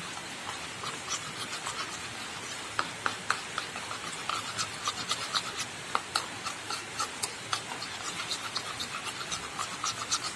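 Spoon stirring milk and red food colouring in a cup to make fake blood: light, irregular clinks and scraping, many small ticks a second.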